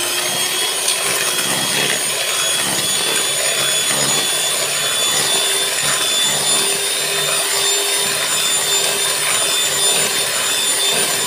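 Miyako electric hand mixer running steadily at medium speed, its beaters whisking eggs and sugar in a bowl: a constant motor whine over a whirring, sloshing noise.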